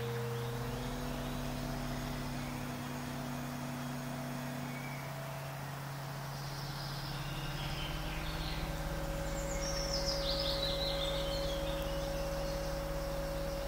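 Fantasy ambience track: low held drone notes that shift to new pitches every few seconds, with bird chirps and a falling trill high above, the trill loudest about ten seconds in.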